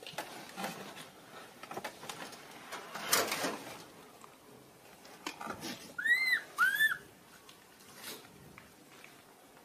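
Infant macaque giving two short, high, arched cries, rising then falling in pitch, about six seconds in. A brief scratchy rustle comes about three seconds in, with faint scrabbling on sandy ground around it.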